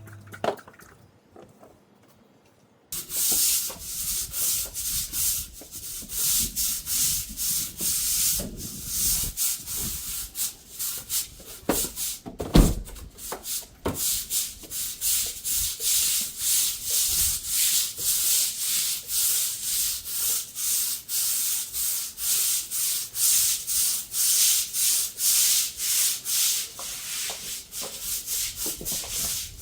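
Harsh scrubbing strokes across a hard outdoor surface start about three seconds in and repeat about two to three times a second. The sound is a hiss that swells and drops with each stroke. One heavy thump comes about halfway through.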